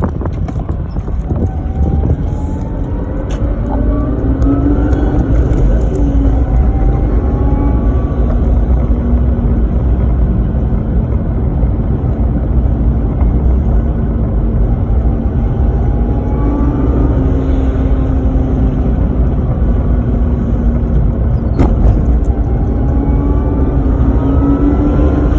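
Supercharged 2JZ-GE straight-six in a Lexus IS300 pulling under way, a deep engine rumble under a belt-driven Powerdyne supercharger's whine that rises in pitch as the revs climb, once in the first few seconds and again through the second half. Two short sharp clicks stand out, one a few seconds in and one near the end.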